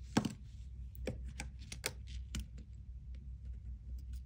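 Small sharp clicks and taps as the opened wristwatch and its removed metal case back are handled on a tabletop, the loudest right at the start, then a scattered handful more, one near the end.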